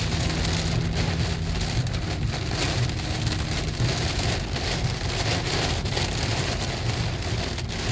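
Rain pattering on a car's roof and windshield, heard from inside the cabin. Under it runs a steady low hum from the moving car.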